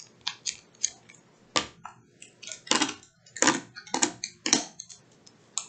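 Small plastic-bagged acrylic pendant kits being handled and counted on a table: about a dozen light, irregular clicks and crinkles.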